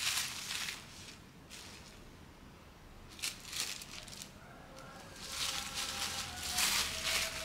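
Clear plastic polybag crinkling and rustling as a folded polyester football jersey is handled and pulled out of it, in three bursts: at the start, briefly about three seconds in, and a longer stretch from about five seconds in.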